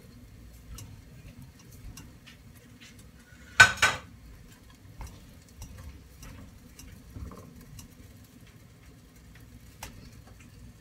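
Cookware clanking: one loud metallic clatter of pots and pans about four seconds in, with a few light clicks later, over a faint steady low hum.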